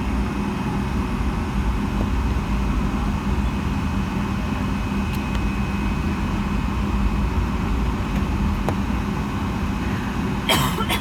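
Boeing 757-200 airliner cabin noise: a steady rumble of engines and airflow with a constant low hum. A brief sharp noise near the end.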